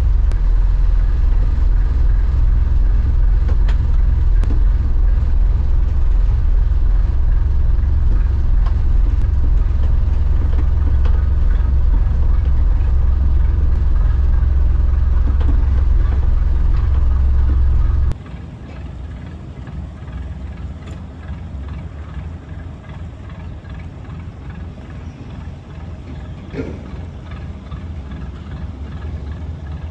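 Old Perkins marine diesel engine of a wooden motor cruiser running at low manoeuvring speed, a steady low rumble heard from on board. About 18 seconds in the sound drops abruptly to a much quieter, more distant rumble.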